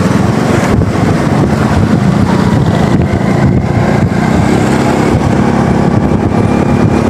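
Motorcycle engine running at a steady road speed, heard from on the bike.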